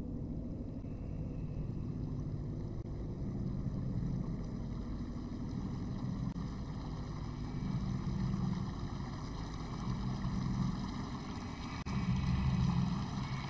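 Low rumble of ocean surf and wind, swelling and easing every few seconds, loudest near the end.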